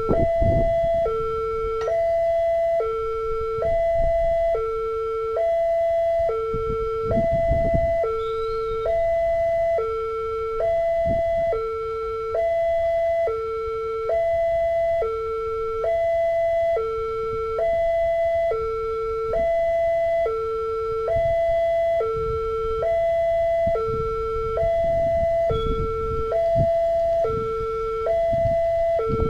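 Railway level-crossing warning siren sounding its two-tone alarm, a higher and a lower tone each held just under a second and alternating steadily: the crossing is closing for an approaching train. A low rumble runs underneath.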